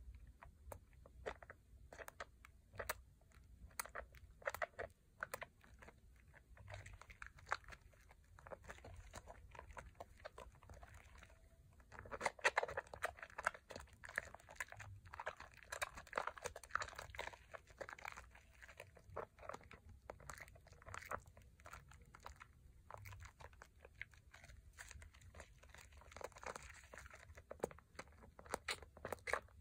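Wet, squishy lather crackling and squelching as a bar of Pears soap is rubbed and squeezed between foamy hands, full of small sharp pops and clicks. It gets louder and denser about twelve seconds in.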